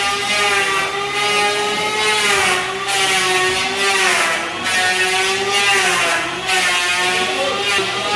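A handheld electric power tool's motor running on wood. Its pitch sags and recovers about every two seconds as the tool takes each cut, with bursts of hiss from the cutting.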